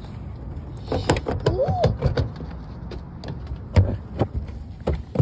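Knocks and rubbing of a handheld phone being jostled about, over a low rumble, with a short rising-and-falling cry about a second and a half in.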